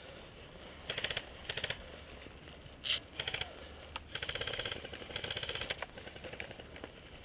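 Airsoft guns firing about five short full-auto bursts of rapid clicks, the longest lasting just under a second.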